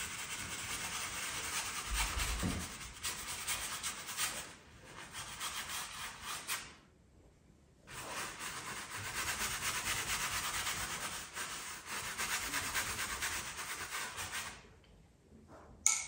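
Wide flat bristle brush scrubbing oil paint across a stretched canvas: a steady scratchy rub of stroke after stroke, with a short break about seven seconds in, stopping shortly before the end.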